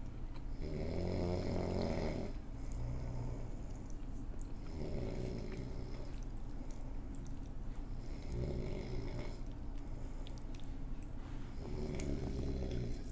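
Loud snoring: four long snores, one about every three and a half seconds.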